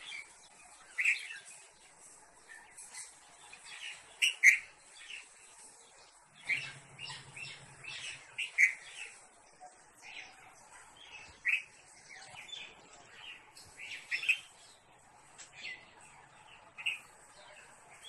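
Red-vented bulbul chirping: short, sharp calls repeated at irregular intervals, the loudest about four and a half seconds in.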